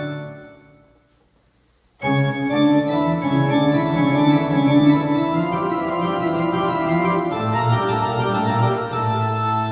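Yamaha PSR-S910 arranger keyboard playing its pipe organ voice. A held chord is released and dies away within the first second, and after a brief silence sustained organ chords start again about two seconds in and continue.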